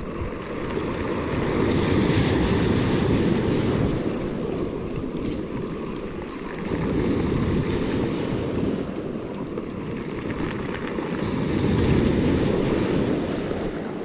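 Surf rolling in and breaking on the beach, swelling and easing three times, with wind rumbling on the microphone.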